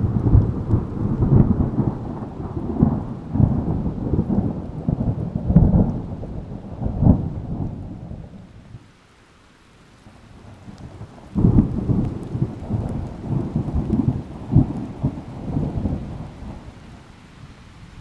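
Thunder from a thunderstorm: two long rolling peals. The first starts suddenly and rumbles for about eight seconds. The second breaks in about eleven seconds in and fades away near the end.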